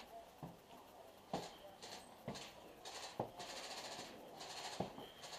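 Slow, careful footsteps on a concrete floor, five steps about a second apart, with a soft hiss between them.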